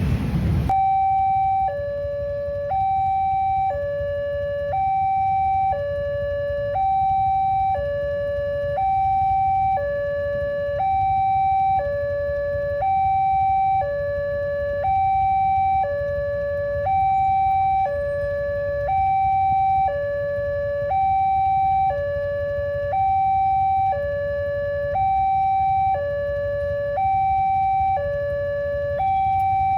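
Railway level-crossing warning siren sounding a steady two-tone alarm, a higher and a lower note alternating about once a second, over a low rumble.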